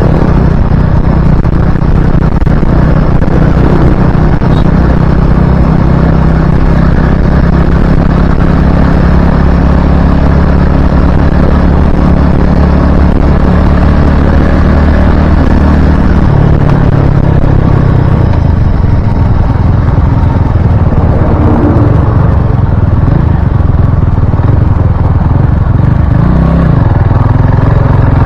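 Motorcycle engine running at low speed, its note shifting about halfway through and again near the end. Loud, steady wind noise on the helmet-mounted Akaso Brave 4 action camera's microphone, ridden with the visor open, is mixed with it.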